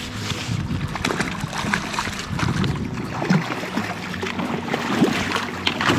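Shallow river water rushing and splashing around wading legs and a landing net as a rainbow trout is netted, with irregular small splashes throughout.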